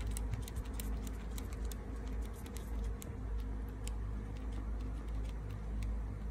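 Kittens suckling at their mother cat's teats: small, irregular wet clicks and smacks, several a second, over a steady low rumble.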